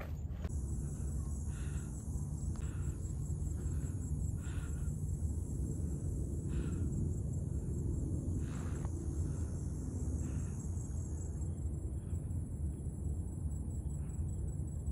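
A steady, high-pitched insect chorus with a fine pulsing to it, over a low rumble, with faint soft taps every second or two.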